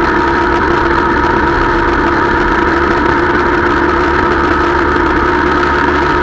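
Small motorcycle engine running at a steady cruising speed, recorded on board the bike itself, its note holding even with no revving.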